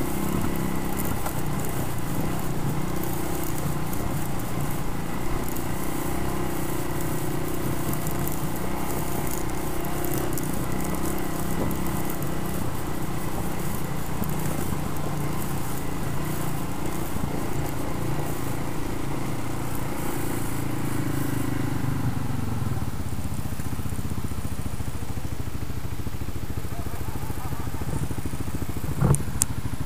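ATV engine running steadily while riding, its note dropping lower about two-thirds of the way through. A short knock near the end.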